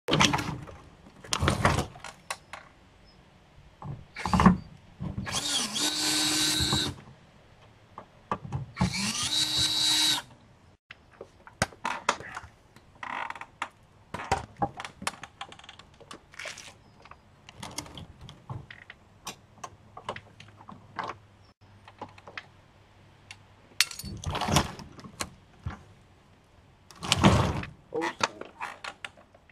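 A power drill running in two short runs of about a second and a half each, taking screws out of a dishwasher's galvanized metal panels. Between and after the runs come scattered knocks and rattles of metal and plastic parts being handled.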